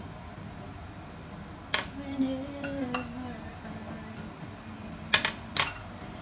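Frying pan and metal spatula knocking and clinking as they are handled: one sharp knock nearly two seconds in, a light tap about a second later, and two louder knocks near the end as the pan is set down on the cooktop.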